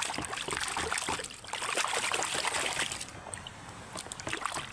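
Water trickling and splashing over a muddy toy as it is rinsed, with small clicks and knocks mixed in; it quietens about three seconds in.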